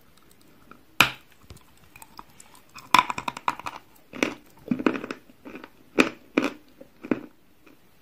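Biting and chewing a piece of white chalk: a sharp snap about a second in, a dense run of dry crunches around three seconds in, then a series of separate crunches as it is chewed.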